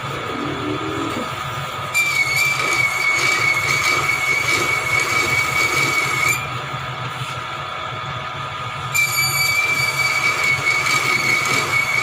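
Metal-cutting machine tool in a machine shop, twice cutting with a high steady squeal and hiss for about four seconds each, starting about two seconds in and again near the ninth second, over a steady machine hum.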